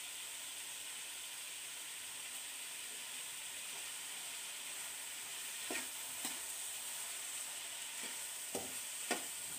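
Chopped onions and green chillies frying in oil in an aluminium kadai, a steady sizzle. A few short scrapes of a spatula stirring against the pan come in the second half. The onions are still pale, early in being cooked down to brown.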